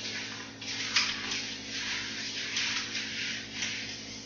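Whiteboard being wiped clean with an eraser: a run of quick rubbing strokes, about two a second.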